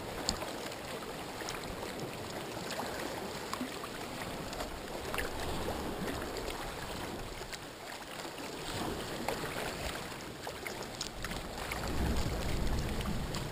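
Sea water lapping and sloshing around a sea kayak's hull and a deck-mounted camera, with many small splashes and drips. Low rushes of water or wind swell up about five seconds in and again near the end.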